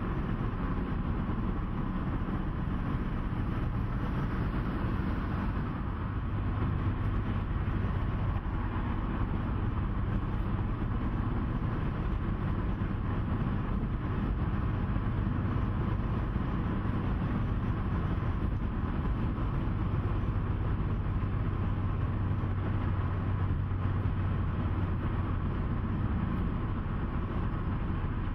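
Steady road noise with a low engine drone from a large vehicle travelling at highway speed, heard from on board.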